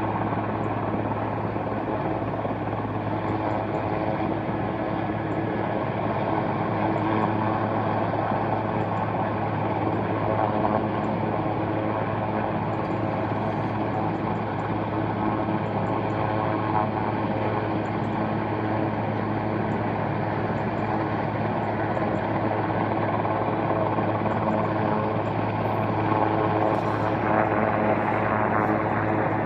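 Helicopter hovering at a distance, its rotor and engine a steady, unchanging drone. A few brief rustles near the end.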